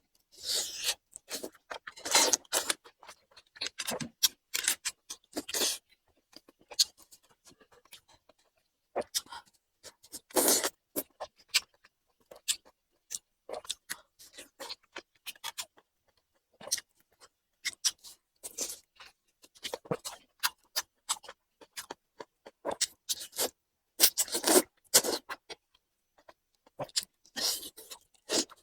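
Close-miked eating sounds: chewing and mouth noises in irregular clusters of wet clicks and crunchy bursts, with short quiet gaps between mouthfuls.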